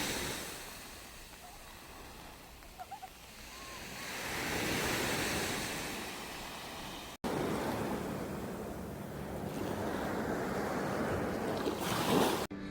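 Sea waves washing in and falling back, swelling up and fading over several seconds, with some wind on the microphone; the sound breaks off abruptly twice where the clips change.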